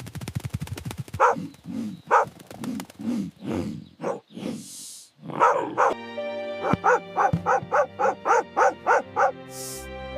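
A dog barking and yipping in short repeated calls, with a fast run of yips in the second half. Two brief hisses come through, one about halfway and one near the end, and background music comes in about six seconds in.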